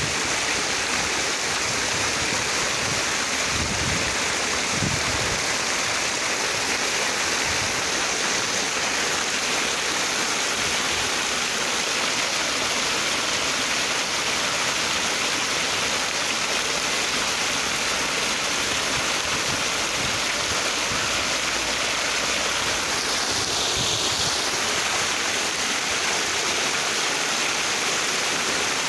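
Water cascading down a mossy rock face in a small waterfall, a steady rushing splash that holds even throughout.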